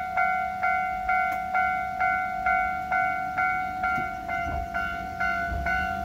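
Railway level crossing warning bell ringing steadily, about two dings a second, each with a short ring-out. From about four seconds in, the low rumble of an approaching electric train rises beneath it.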